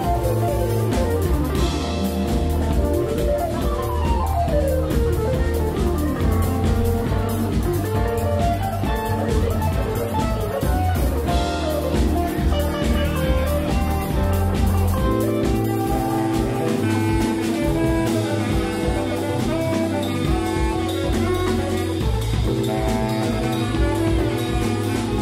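Live jazz band playing an instrumental on electric guitar, saxophone, Nord Electro keyboard, drums and bass guitar. A run of notes slides downward a couple of seconds in, and the deep bass drops away about fifteen seconds in, leaving held chords over the drums.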